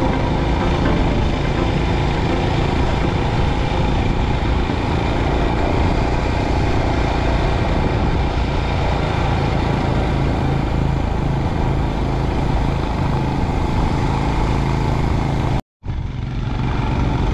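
Motorcycle engine running steadily under way, with heavy wind rush over the microphone. The sound breaks off for a moment near the end, then carries on.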